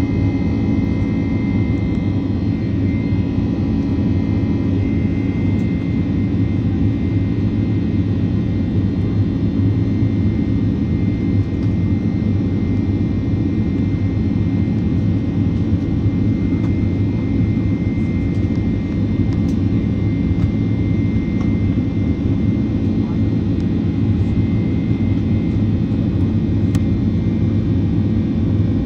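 Steady jet engine and airframe noise of a Boeing 767-400, heard from inside the passenger cabin: a constant low hum with a thin whine above it, holding level with no spool-up or change.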